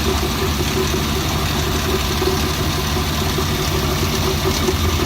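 Suzuki Bolan's three-cylinder petrol engine idling steadily. It is misfiring on one cylinder, with a noise the mechanic places at the timing or tappet cover, and he suspects the first cylinder's valves or tappets in the head.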